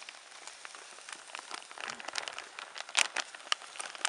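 Crinkling of a plastic pouch of dried risotto mix being handled and tipped into a pot, with a dense patter of small clicks as the dry rice pours in and one sharp click about three seconds in.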